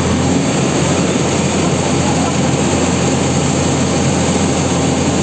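JCB 4DX backhoe loader's diesel engine running steadily in a loud drone while it holds a transformer of about 25 quintals suspended on slings.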